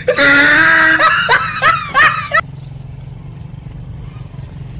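Human laughter, a long high-pitched shriek and then quick falling snickers, cut off suddenly about two and a half seconds in. After that only a low steady background hum is left.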